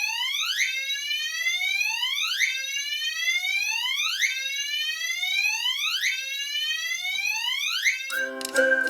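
Fire alarm system's notification appliances sounding a repeating whoop tone after a carbon monoxide detector has been activated: each sweep rises in pitch over about two seconds and then starts again. The tone cuts off near the end and music takes over.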